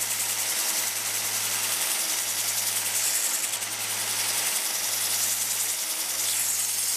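Bench 1x30 belt sander running while a steel awl shaft, spun in a corded drill, grinds against its 120-grit belt to sharpen the point, a steady grinding hiss over a low motor hum.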